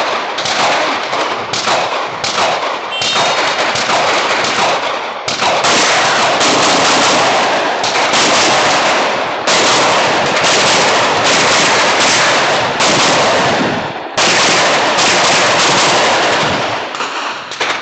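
Rapid strings of shots from an Open-division competition pistol, fired quickly enough that the echo from the hillside fills the gaps between them. The firing breaks off briefly three times.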